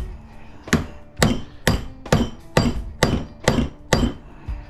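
Claw hammer pounding a transformer's copper coil held on a bench vise: about eight sharp metal blows, roughly two a second, each ringing briefly.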